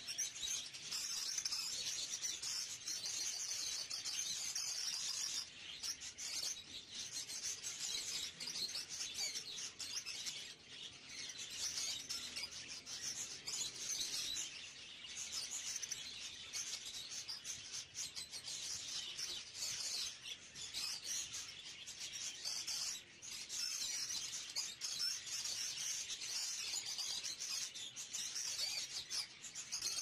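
Caged budgerigars chattering and warbling in a continuous high twitter, dipping briefly now and then.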